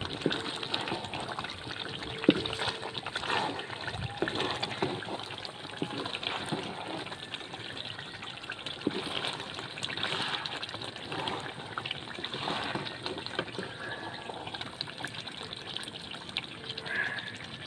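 Thick starch (nishasta) halwa bubbling and sizzling in hot oil in an iron karahi while a spatula stirs it, with scattered small clicks and scrapes. The halwa is fully cooked, the oil frying around it.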